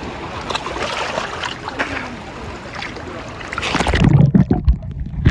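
Water splashing and sloshing close to the microphone. About four seconds in, the sound turns suddenly muffled and low, with quick bubbly knocks.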